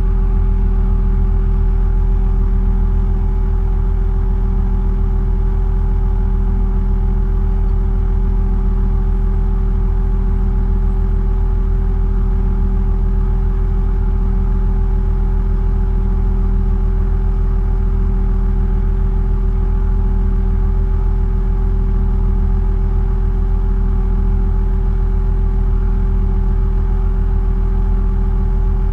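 Heavy machinery engine running at a steady speed: a constant low drone with a steady hum on top, no revving or change in speed, heard from inside a vehicle cab.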